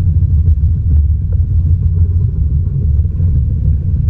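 Steady low rumble of wind buffeting an action camera's microphone on open sea, with a few faint ticks.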